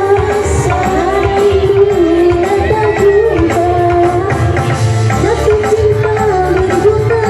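Music: a lead melody that slides and wavers in pitch over a steady drum beat.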